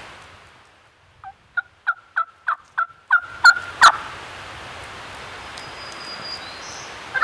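Wild turkey yelping: a run of about nine short yelps, roughly three a second, the last two loudest.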